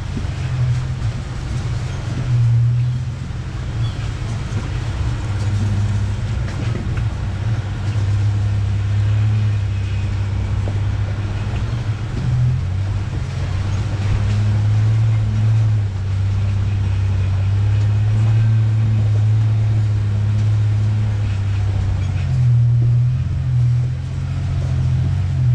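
1993 Ford Ranger's engine running at an easy trail pace, a steady low drone that wavers near the end, with frequent small knocks and rattles as the truck works over the rough dirt track.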